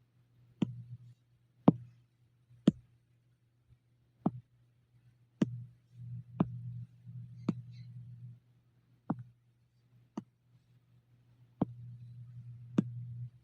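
About eleven sharp, single clicks, irregularly spaced about a second apart, typical of a computer mouse clicking during editing work. A low hum comes and goes beneath them.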